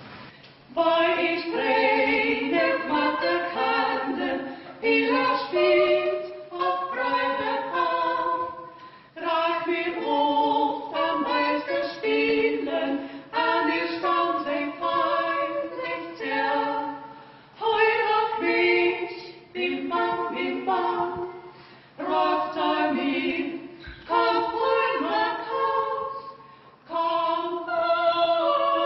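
Two women singing a hymn unaccompanied, in phrases a few seconds long separated by brief breaks.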